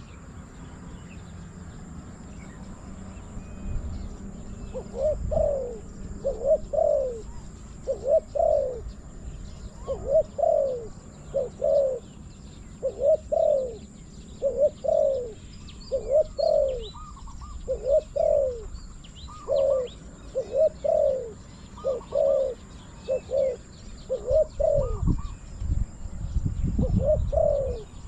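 Spotted doves cooing: short falling coos in pairs, about one pair every second and a half, starting about five seconds in. Wind rumbles on the microphone now and then, loudest near the end.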